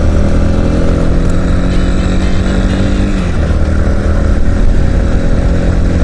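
Yamaha Serow 250's single-cylinder engine running steadily while the motorcycle is ridden along at speed. The engine note drops about three seconds in, then holds steady again.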